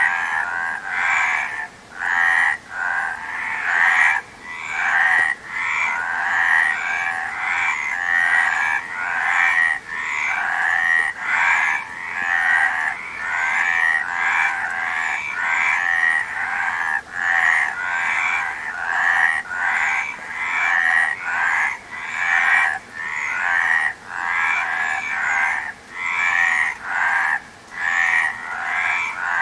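A chorus of frogs croaking, many calls overlapping into a continuous din with brief dips every second or two.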